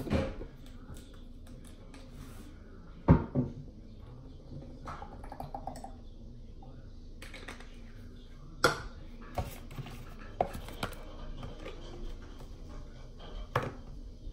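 Plastic hair-dye bottles and caps handled and set down on a table: scattered knocks and clicks, the loudest about three seconds in, others near the start and between eight and eleven seconds, and one more near the end.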